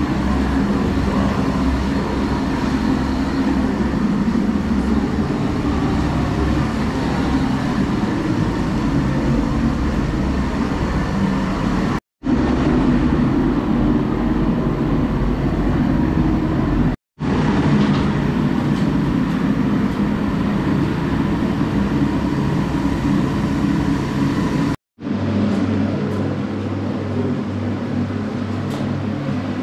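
Propane-fired heat gun running loudly and steadily, warming the PVC stretch-ceiling film so it softens for fitting. The sound cuts out abruptly three times, and after the last break a steadier low hum is heard underneath.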